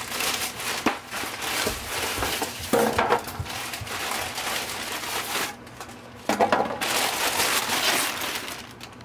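Crinkling plastic wrapping and styrofoam glider parts rubbing and knocking as they are handled and laid on a wooden desk, with a short lull a little past the middle.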